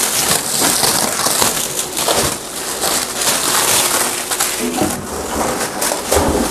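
Packing wrap being torn and pulled off a solar inverter cabinet by hand, a continuous crinkling and rustling.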